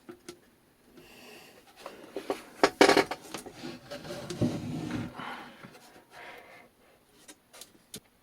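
Handling noise as the radio's parts are worked on by hand: scattered clicks and rubbing, a cluster of sharp clicks about three seconds in, and a duller knock about four and a half seconds in.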